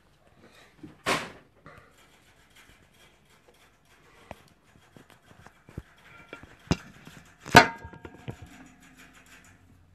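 Handling noise from a phone being moved about and set up on a table: scattered clicks and knocks. The loudest knock comes about seven and a half seconds in and rings briefly.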